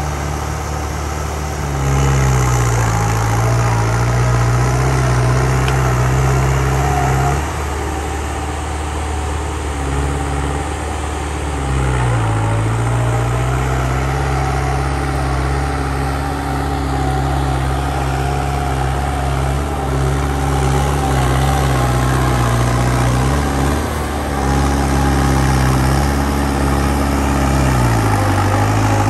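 New Holland 5630 tractor's diesel engine running steadily under load while pulling a 19-tine cultivator through the soil. Its pitch drops and recovers a few times, about two seconds in, around twelve seconds, and near the end.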